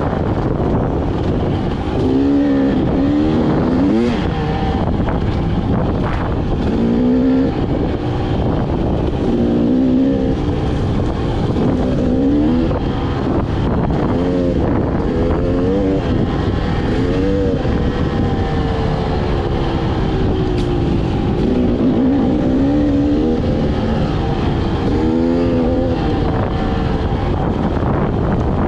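Dirt bike engine under way on a rough trail, its note repeatedly climbing and dropping as the rider works the throttle and shifts, over a steady rushing noise.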